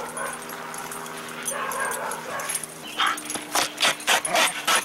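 A dog tearing at an old couch, tugging and ripping its upholstery fabric and stuffing with its teeth while making its own dog noises. From about three seconds in comes a quick run of sharp ripping sounds, several a second.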